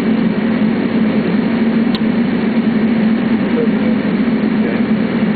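Steady cockpit noise inside an MD-80 airliner: a continuous rush with a constant low hum underneath, unchanging throughout.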